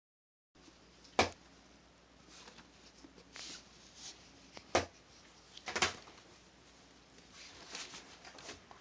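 A few sharp knocks and thumps with soft rustling between them, like objects being handled and set down; no ringing notes.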